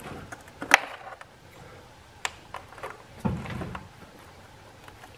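Plastic electrical connectors being unplugged from the ignition coil packs of a 2.4L four-cylinder engine. There is a sharp click of a connector's press tab less than a second in, then a few fainter clicks and handling sounds of the wiring.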